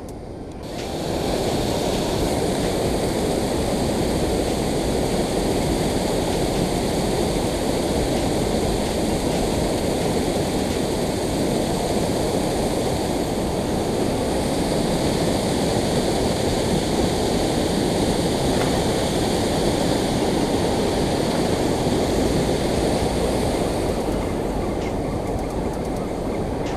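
Water rushing steadily over a concrete dam spillway, a constant noise that comes up about a second in.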